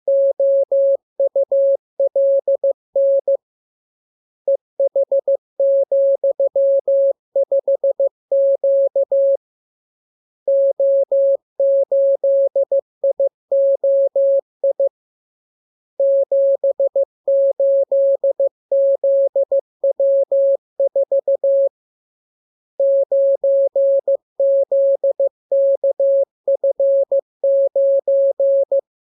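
Morse code practice tone, a single steady pitch of about 600 Hz keyed on and off in dots and dashes. It comes in runs of characters with a pause of about a second between runs, five runs in all.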